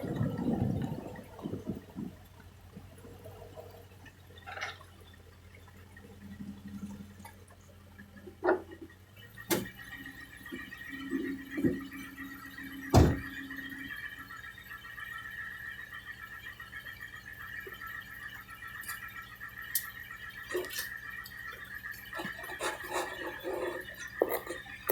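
Toyota Tundra's Air Lift air suspension making its popping sound: several sharp pops, the loudest about halfway through and a cluster near the end, over a low hum that gives way after about nine seconds to a steady high whine.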